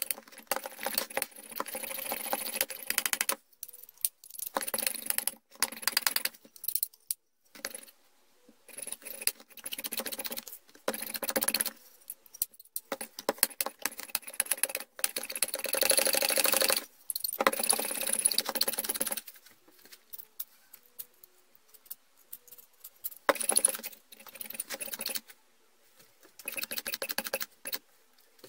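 Rusty old hole punch being handled and its spring-loaded lever worked, its corroded metal parts clicking and rattling in several bursts of a second or more, with short quiet gaps between them.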